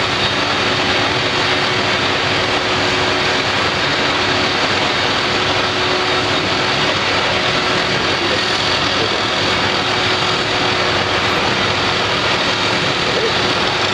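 Cat 330D L hydraulic excavator's diesel engine running steadily under working load, with a steady whine over the engine noise.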